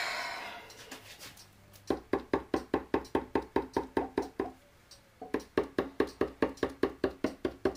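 Gloved fingertips rapidly tapping the bottoms of two upside-down plastic cups full of paint resting on a canvas, about five even knocks a second, with a short pause before the tapping starts again.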